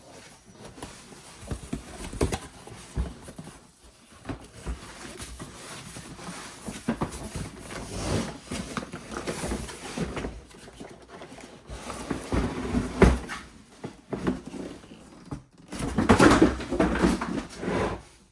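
Unboxing handling noises: a cardboard box and packaging being opened and pulled about, with irregular knocks, clicks and rustling, and a louder spell of rustling and scraping near the end.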